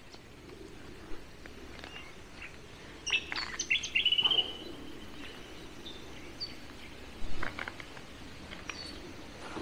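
Birds chirping, a quick run of short calls about three to four seconds in and single calls later, over faint outdoor ambience, with a few light clicks from wire being handled at a fence earth stake.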